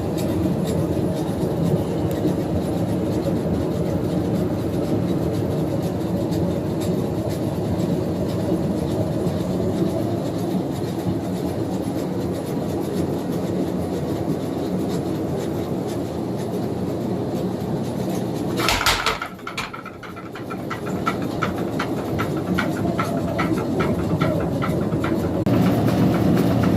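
Little Giant mechanical power hammer running and striking hot steel in rapid, steady blows while forging small knife blades. About two-thirds of the way through comes a loud sharp clank and a brief drop. After that the blows come as distinct, even strokes about four a second, and the sound grows fuller near the end.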